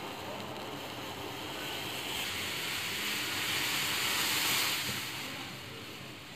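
Steel pan of milk tea hissing on a gas burner as it heats toward the boil; the hiss swells about two seconds in and eases off near the end.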